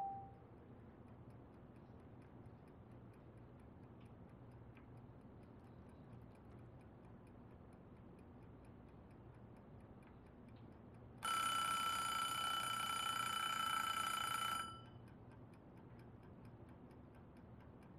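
An alarm clock goes off about eleven seconds in, ringing loudly for about three and a half seconds as a cluster of steady high tones, then cutting off abruptly. Before and after it, faint regular ticking over a low steady room hum.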